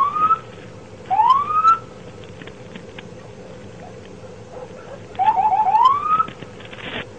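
Police car siren blipped in short rising whoops: one at the start, one about a second in, then a quick stutter of three short chirps running straight into a longer whoop near the end.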